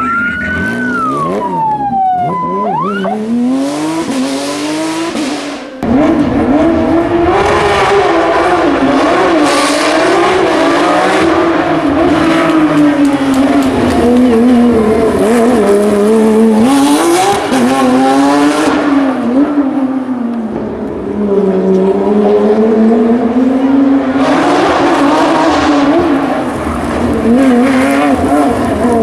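Porsche 911 GT3 Cup flat-six racing engine revving hard at speed, its pitch repeatedly climbing and dropping through gear changes and lifts.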